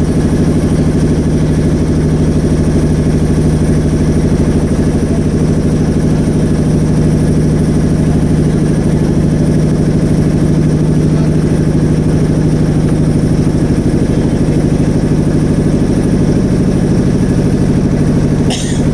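Motorboat engine running at a steady speed, a loud, even drone with a low hum. A brief knock comes near the end.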